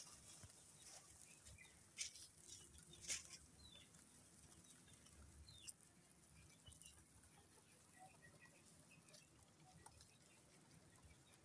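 Near silence: faint rustling and nibbling of rabbits feeding on fresh greens, with a few soft clicks about two and three seconds in.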